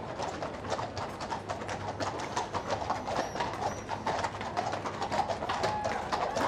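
Hooves of a team of Windsor Grey carriage horses clip-clopping on a paved road, a quick, irregular patter of many shod hooves.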